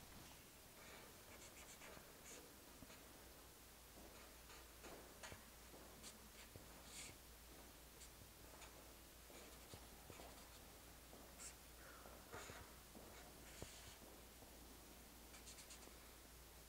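Faint scratching and squeaking of a felt-tip marker drawing lines on paper, in short, irregular strokes.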